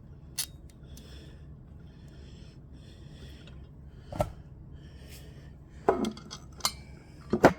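Handling noises: a few separate light clicks and knocks of hard objects, the loudest near the end, over a faint steady low hum.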